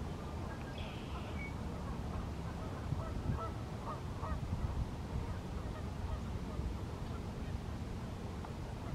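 A few faint, short animal calls, honk-like, about three to four seconds in, over a steady low outdoor rumble.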